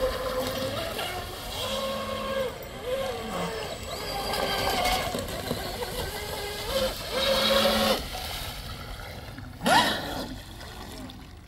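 Deltaforce Vortex 34 RC hydroplane running a pass on the water. Its motor's pitch shifts up and down with the throttle, with a quick rising rev about ten seconds in, then it gets quieter near the end.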